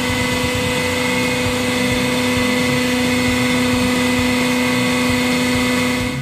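Hydraulic guillotine press running while its blade retracts, the pump motor giving a steady hum with a fainter high whine.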